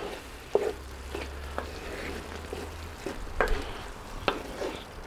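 Creamy potato-and-sausage mixture sizzling and bubbling in a cast-iron skillet while a wooden spatula stirs it, with about four short knocks of the spatula against the pan.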